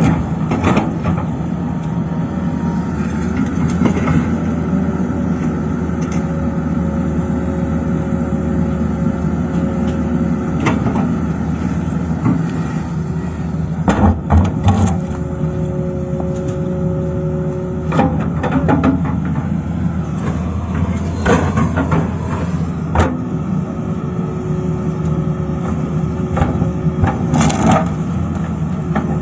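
Excavator's diesel engine running steadily under work, with a higher steady tone that comes and goes in stretches and a handful of sharp knocks and clanks, several of them bunched about halfway through and near the end.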